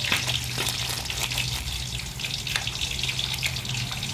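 Food sizzling and crackling in a hot pan, a steady dense crackle of small pops over a low steady hum.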